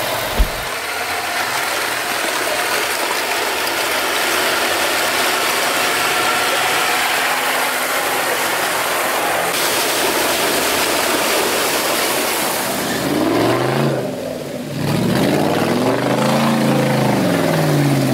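Off-road 4x4 engine running under a steady rushing noise of water and spray. In the last few seconds an engine revs up and down several times as the vehicle churns through deep mud.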